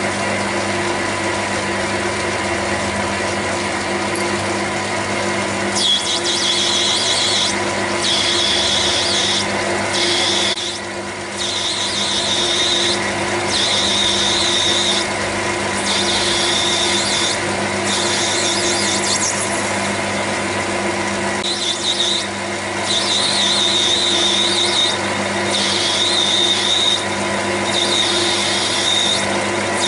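Small metal lathe running steadily with a motor hum. From about six seconds in, a high squeal comes and goes in stretches of a second or two as the tool cuts the acetal rod, with short breaks where the feed is stopped to snap the plastic swarf.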